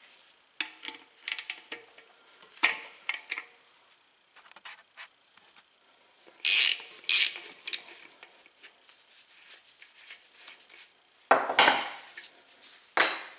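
Metal clinks and scrapes of a wrench and small steel hub parts (axle nut, washer, spacer) being worked loose and handled at a bicycle's rear hub axle. The clicks are scattered, with louder clanks twice in the middle and twice near the end.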